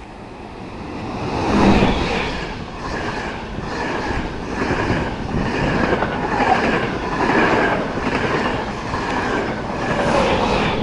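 Yellow-and-blue NS electric passenger train passing close along the platform at speed. The front is loudest about two seconds in, followed by a steady clatter of wheels over the rail joints, about two clicks a second, as the carriages go by.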